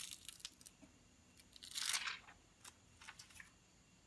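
Clear plastic protective film being peeled off a phone screen and crinkled in gloved fingers: a few crackling rustles, the loudest about two seconds in.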